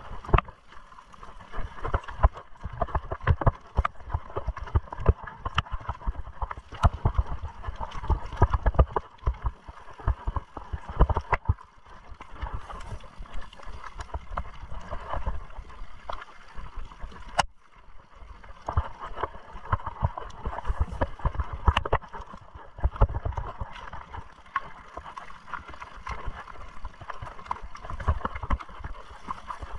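Mountain bike being ridden over a rough trail: constant irregular rattling and knocking from the bike and tyres, with gusty low rumble on the microphone.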